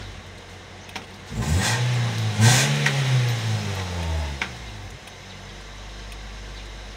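Toyota Vios four-cylinder engine revved up in two quick surges, then the revs fall back to a steady idle. It runs smoothly with no misfire, now that its ignition coils and spark plugs have been replaced.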